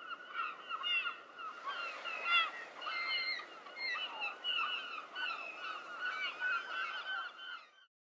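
A flock of birds calling, many short overlapping calls crowding one another, fading out near the end.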